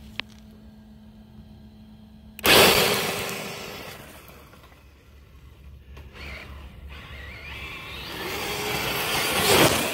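Brushless-converted Traxxas TRX-4 RC crawler launching at full throttle about two and a half seconds in, after a faint steady hum: a sudden loud rush of motor and tyres on gravel that fades as the truck speeds away. Near the end it grows louder again as the truck races back toward the microphone.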